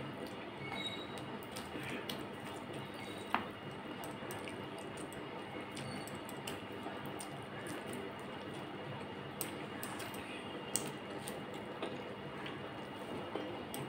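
Wet squishing of fingers mixing rice with fish curry on a steel plate, along with chewing, with a few sharp clicks scattered through.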